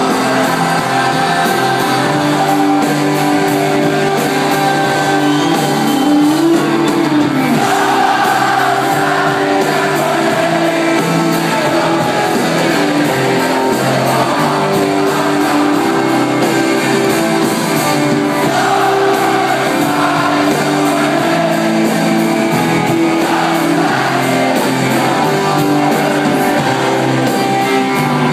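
Live rock band playing, with electric guitars, drums and keyboards under sung vocals that a large crowd sings along with.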